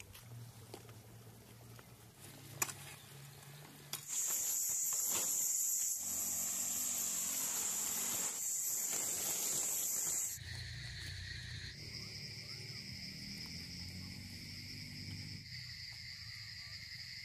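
A couple of knocks of a hoe blade in dry soil in the first few seconds. Then a loud, steady, very high-pitched insect shrill from about four seconds in, which cuts off abruptly near ten seconds and gives way to a quieter, lower-pitched steady insect chorus for the rest.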